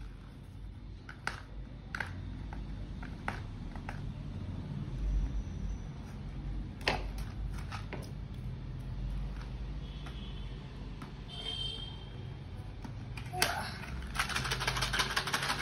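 Handling a small cardboard firecracker packet: scattered clicks and taps of fingers on card, then a dense scratchy rustling of cardboard and paper for the last couple of seconds as the packet is opened.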